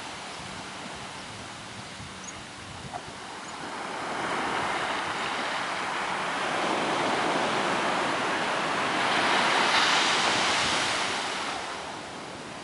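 Ocean surf breaking and washing up a sandy beach: a steady rush of white water that swells over several seconds, is loudest about ten seconds in, then eases off near the end.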